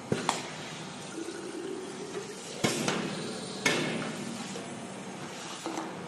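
Semi-automatic aerosol can filling machine for PU foam at work: sharp metallic clacks as the tin-plate cans are set under and against the filling heads. Two louder sudden clack-and-hiss bursts come about two and a half and three and a half seconds in, the second fading out over about a second.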